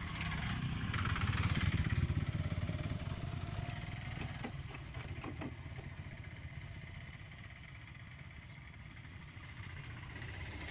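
A motor vehicle's engine rumbling past, swelling over the first two seconds and then fading away. There are a few short clicks around the middle.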